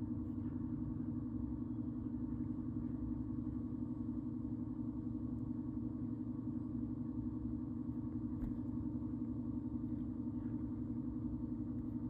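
A steady low mechanical hum over a rumble, unchanging throughout.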